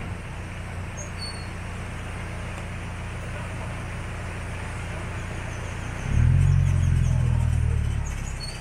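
Resort shuttle train's engine running with a low, steady hum, then revving louder for about two seconds, six seconds in, as the train pulls away from a stop. A few short bird chirps about a second in.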